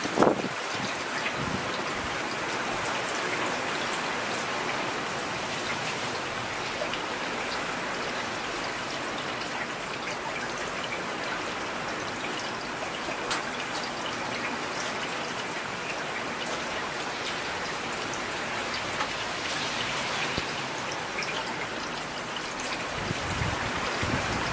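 Steady heavy rain falling, with scattered drops ticking close by. A brief low rumble comes right at the start and again near the end.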